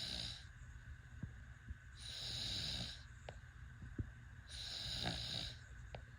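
Baby snoring: a breathy, hissing rasp about a second long with each breath, coming back every two and a half seconds or so.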